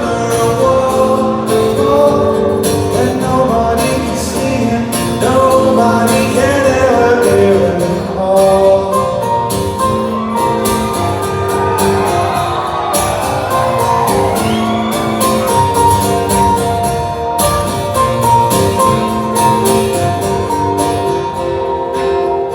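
Live acoustic rock performance: a male lead voice singing over strummed acoustic guitar and band accompaniment.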